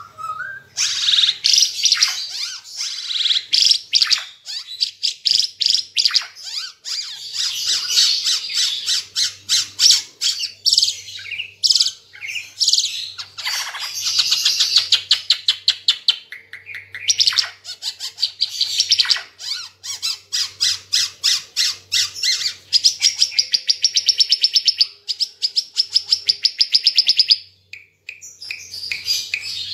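An Ara Timor songbird singing without pause in long, fast runs of sharp, high chirps and rattling trills, breaking off briefly near the end before starting again.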